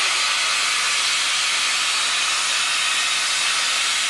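Steam hissing steadily from the LNER A3 Pacific locomotive 60103 Flying Scotsman, a loud, even rush without a break.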